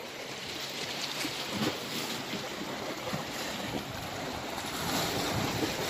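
Sea waves washing against a rocky shore: a steady surf wash that swells a little near the end, with some wind on the microphone.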